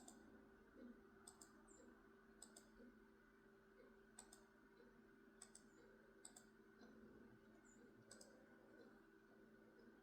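Faint, irregular high-pitched clicks and short chips from small birds at a seed feeder, about eight in ten seconds, over a steady low hum.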